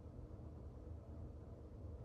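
Faint, steady low rumble of background noise with no distinct sounds in it.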